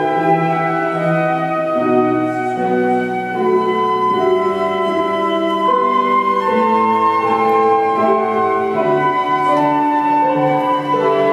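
Two concert flutes playing a slow melody in duet, with held notes moving step by step, over a piano accompaniment in the lower register.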